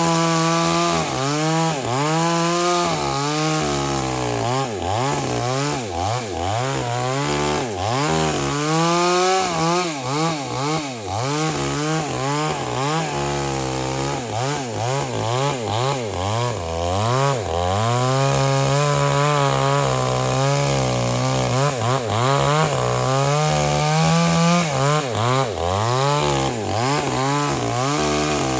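A JCK 22-inch two-stroke chainsaw cutting wood at high revs. Its engine pitch keeps sagging and picking up again, about once a second, as the chain bites and eases, then holds steadier near the end.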